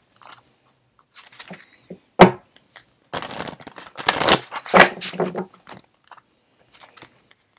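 Deck of oracle cards being shuffled and handled: bursts of cards rustling and sliding against each other, with one sharp knock about two seconds in.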